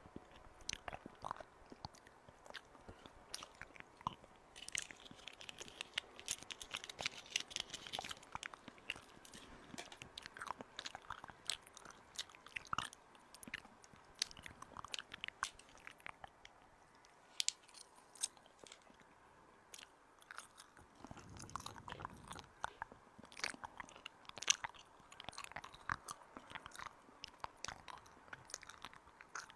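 Stones rubbed and ground together close to the microphone, an ASMR trigger: an irregular run of crunchy scraping with many small sharp clicks, busier around a fifth of the way in and again in the last third.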